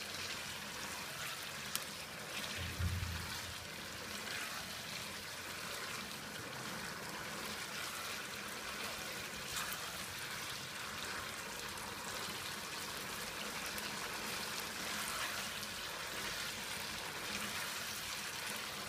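Chicken karahi masala frying in oil in a non-stick pan over a raised flame, a steady sizzle as it is stirred with a spatula, with a brief low bump about three seconds in.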